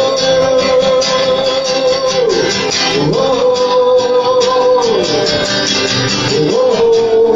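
Slow worship music with guitar accompaniment under a long held melody line that slides down and back between notes every second or two.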